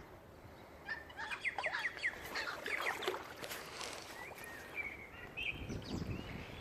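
Birds chirping: a quick run of short calls starting about a second in, then a few thinner, wavering calls near the end.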